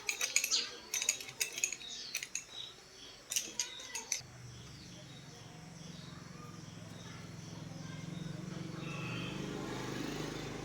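Sharp metallic clicks and taps of tools on metal parts for about four seconds, then a steady low hum that slowly swells and begins to fade near the end.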